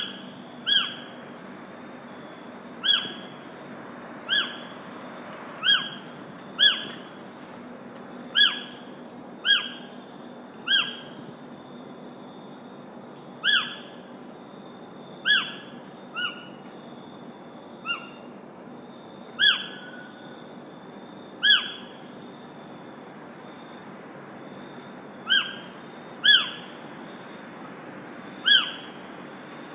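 A bird repeating a short, sharp, slightly falling call every second or two, with a pause of a few seconds about two-thirds of the way through, over a steady background hiss.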